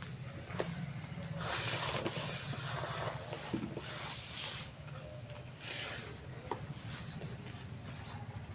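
Dry clumps of cement or dirt crumbled and rubbed between fingers, giving a gritty hiss in several swells, the longest starting about a second and a half in. Short bird chirps sound twice near the end over a steady low hum.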